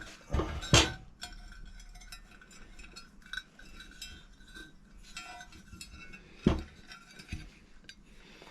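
Metal parts being handled and turned over on a workbench: light clinks and rattles, with a sharper knock just under a second in and another about six and a half seconds in.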